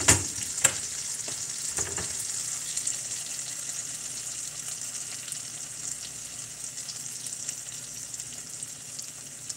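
Bluegill and crappie fillets sizzling as they pan-fry in a skillet, the sizzle slowly getting quieter. A silicone spatula taps against the pan a few times in the first two seconds.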